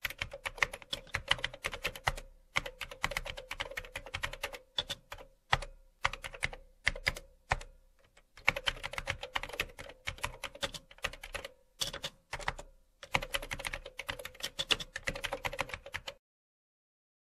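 Typing on a computer keyboard: quick runs of keystrokes in bursts with short pauses, over a faint steady hum. It stops about a second before the end.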